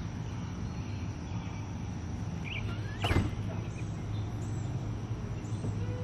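Backyard ambience: a steady low hum, with a few faint short bird chirps about two and a half seconds in and one brief sharp sound about three seconds in.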